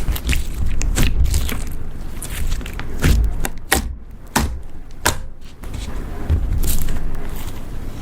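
Slime being squished and poked by hand, with irregular sharp pops and clicks.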